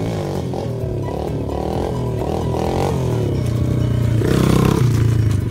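Pit bike engine revving up and down repeatedly as it rides toward the camera, then passing close by about four seconds in, loudest as it goes past.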